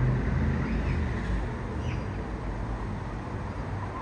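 Distant Boeing 777-200ER's Rolls-Royce Trent jet engines rumbling low and steady as the airliner climbs away, easing off slightly after a second or so.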